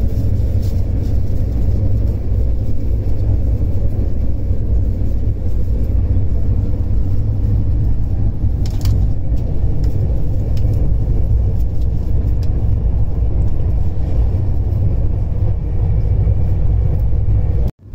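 Duronto Express train running at speed: a steady, loud low rumble of the coach on the track with a few faint clicks, cut off suddenly near the end.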